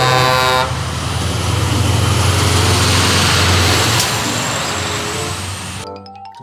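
Semi-truck with a refrigerated trailer driving past: a steady diesel engine hum under tyre and road noise, with a short horn toot at the start. The truck sound cuts off just before the end.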